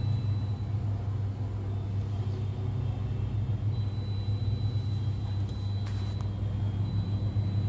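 Hot air rework station blowing on a phone CPU at low airflow and about 300 degrees, reflowing the solder paste in the stencil into balls: a steady low hum with a light hiss.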